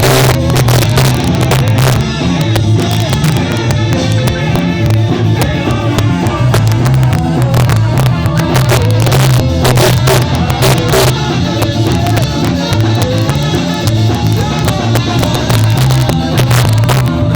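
A live ska band playing loudly, with a strong pulsing bass line and drum hits, in a poor-quality recording.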